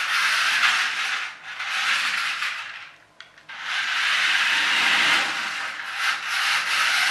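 Small radio-controlled toy stunt car's electric motors and plastic gearboxes whirring as it is driven, in short runs. There is a brief stop about three seconds in, then a longer run.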